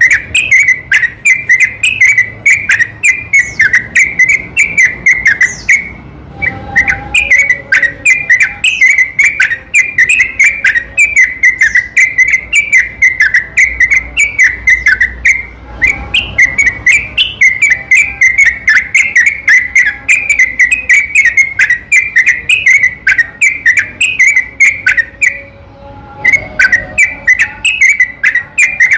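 Yellow-vented bulbul (trucukan) singing a long, rapid run of whistled notes with barely any gaps, stopping only briefly two or three times.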